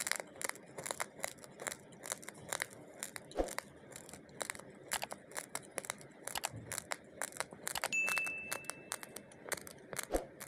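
Raw rice grains being chewed close to the microphone: a fast, irregular string of sharp crunches. A brief steady high beep sounds about eight seconds in.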